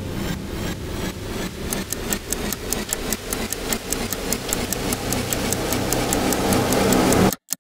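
A cinematic sound-design build-up: a clock-like ticking that speeds up to about five ticks a second over a low, steady drone, cutting off suddenly near the end.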